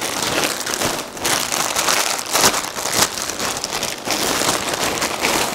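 Clear plastic wrapping crinkling continuously as a boxing glove is handled and pulled out of it, with a few sharper crackles.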